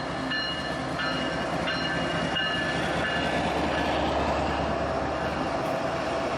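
Long freight train rolling past on the freshly repaired track: a steady rumble of wheels on rail, with high-pitched squealing that comes and goes during the first three seconds.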